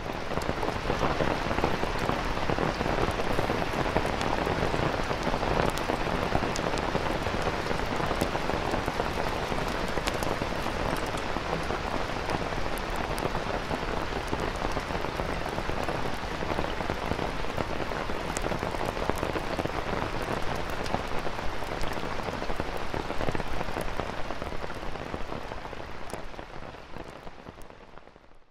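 Heavy rain beating steadily on a tent's fabric, a dense spread of fine drop impacts. It thins and fades away over the last few seconds.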